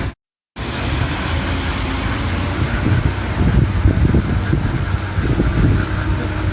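Storm wind buffeting the microphone with rain: a steady rushing noise with a heavy low rumble that swells and falls in gusts. The sound drops out completely for under half a second just after the start.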